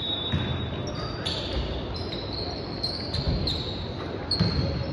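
Basketball game play: sneakers squeaking many times on the court, with short high squeaks at varying pitches, while the ball bounces in low thumps. Voices are heard in the background.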